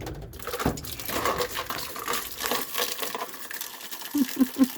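Hot water rushing out of an opened household water supply line, a continuous spattering and splashing that starts suddenly.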